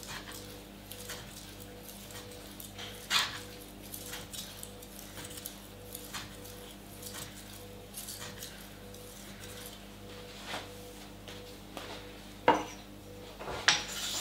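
Steel kitchen knife blade drawn along a wet whetstone in slow, continuous smoothing strokes, a soft scrape about once a second: the stage that evens out the small steps left by the coarse grinding. Two sharp clacks of metal on stone or countertop come near the end.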